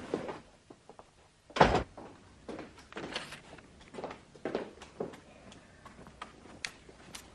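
A door shutting with one heavy thud about a second and a half in, followed by a string of soft, irregular steps and knocks on a hard floor.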